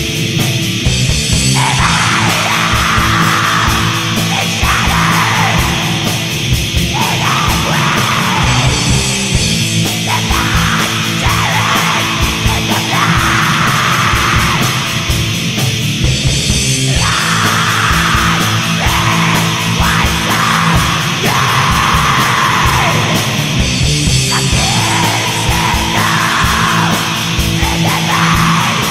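Raw black metal: distorted guitars and bass over fast drumming, with harsh screamed vocals coming in phrases every few seconds.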